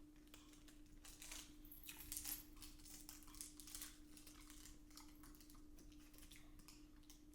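Faint crackling and light clicks as a caramel snack cake is handled and pulled into pieces, densest between about one and four seconds in, over a steady low hum.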